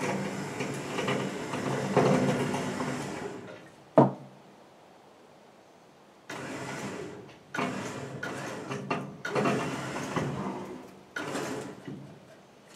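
Truck winch motor running in bursts as it hauls a heavy power hammer back upright: one long pull, a sharp clank about four seconds in, then a pause and several shorter pulls.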